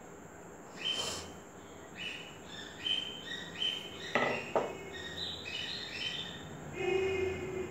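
Small birds chirping: a run of short, high chirps repeating for several seconds, with one longer call near the end. Two sharp knocks come about four seconds in.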